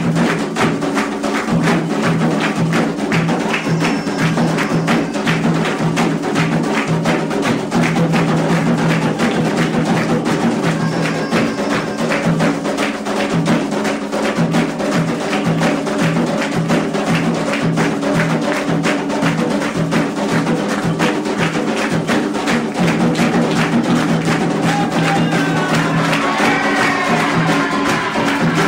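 Candomblé ritual drumming: atabaque hand drums and struck percussion playing a fast, steady rhythm for an orixá's dance.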